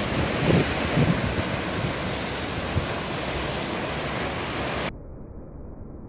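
Sea waves breaking and washing over coastal rocks, a full rushing surf with wind buffeting the microphone. About five seconds in, the sound turns abruptly quieter and muffled, a deep dull rush, as the surf audio is slowed down for slow motion.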